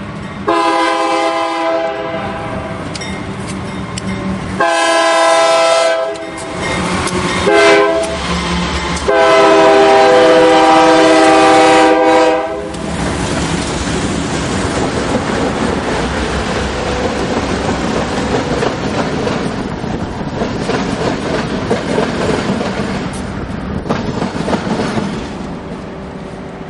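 Union Pacific GE diesel locomotives (C44-9W and C40-8W) sounding the air horn in the grade-crossing pattern: long, long, short, long. The engines then run past close by, the diesel rumble and wheels on the rails fading a little as the units move away.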